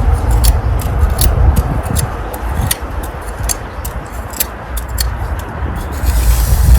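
Steel pointing trowel scraping and ticking against brick and mortar as excess mortar is trimmed from the joints: a quick, irregular run of sharp scrapes and clicks that stops about six seconds in. A steady low rumble runs underneath throughout.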